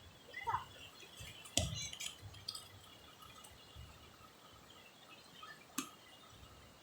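Quiet background with a few scattered sharp clicks, three close together a couple of seconds in and one more near the end, and a short falling chirp about half a second in.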